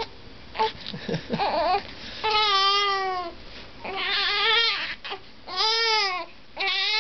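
Newborn baby fussing: a few short whimpers and grunts, then crying in four wails of about a second each, starting about two seconds in.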